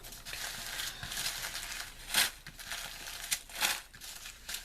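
Rustling and crinkling of a diamond painting canvas and its plastic film being handled, with a couple of sharper crackles about two and three and a half seconds in.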